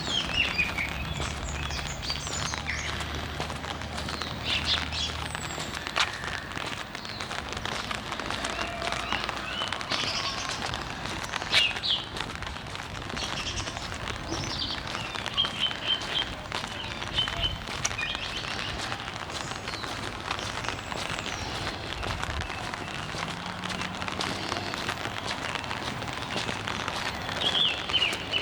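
Birds chirping and calling again and again over a steady hiss of rain. A low hum sounds in the first few seconds and again briefly later on.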